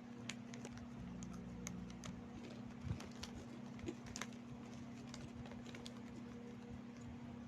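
Close-up chewing of crunchy kornik (fried corn kernels): irregular crunches and clicks, the loudest about three seconds in, over a steady low hum.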